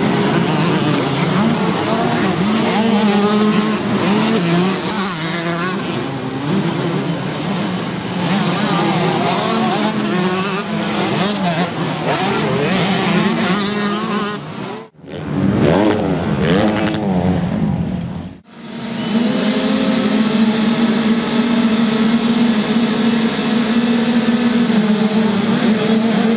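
Motocross bike engines racing past, revving up and down with the gear changes. After two brief breaks, a row of 65 cc two-stroke minicross bikes holds at steady high revs on the starting gate.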